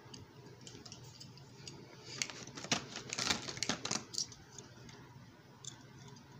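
Clear plastic blister packaging being handled, crinkling and clicking in a burst between about two and four seconds in, with a few faint clicks before.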